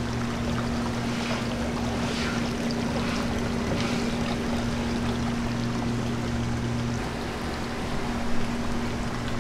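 Steady rushing and bubbling of water in live-fish tanks over a constant low hum from the tank pumps, with a few soft hissing swells early on and a brief louder bump near the end.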